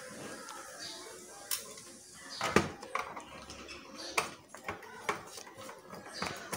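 Phillips screwdriver working the corner screws out of a DVR's sheet-metal case: irregular sharp metallic clicks and clinks, the loudest about two and a half seconds in.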